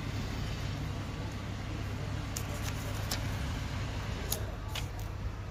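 Paper soaked in DPF cleaner burning, with a handful of sharp crackles from about two seconds in, over a steady low background rumble.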